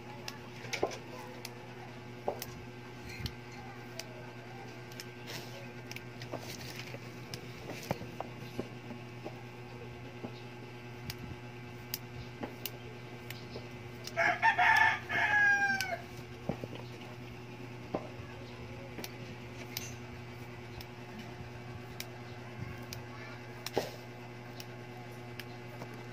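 A rooster crows once, about halfway through, a loud call of about two seconds that falls in pitch at the end. Under it runs a steady low hum, with scattered light clicks.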